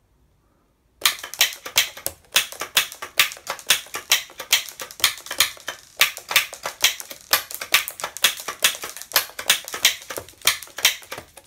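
Typing on a computer keyboard rigged to shoot BB pellets: a quick, uneven run of sharp clicks, several a second, starting about a second in and stopping near the end.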